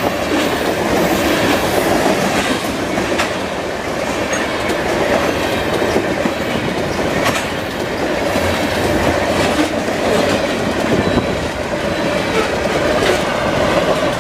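Loud train passing, its cars rolling by with the wheels clacking over rail joints.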